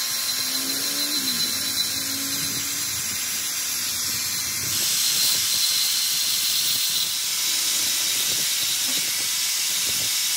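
Handheld angle grinder running, its abrasive disc grinding a notch into the rim of a small metal camshaft bush held against it by hand: a steady high hiss that gets louder and brighter about five seconds in as the disc bites harder, with a thin very high whine from then on.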